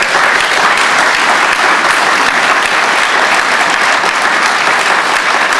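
An audience applauding, a dense and steady clapping.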